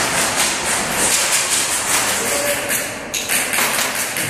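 Footsteps scuffing and knocking on a gritty concrete floor with gear jostling, several irregular steps a second as a player walks through an empty building.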